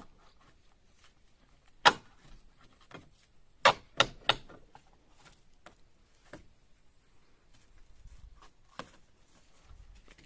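Irregular sharp knocks and bangs of old wooden gable boards and roofing being pried off and knocked down: one loud bang about 2 s in, three quick ones around 4 s, and a few fainter knocks later.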